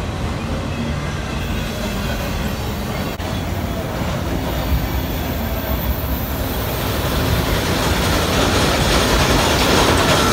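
Freight train of autorack cars rolling past close by: a steady rumble and clatter of steel wheels on rail. It grows louder over the last few seconds as a diesel locomotive within the train draws near.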